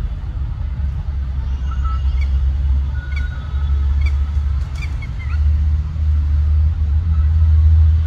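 Steady low outdoor rumble, with a few faint short bird chirps between about two and five seconds in.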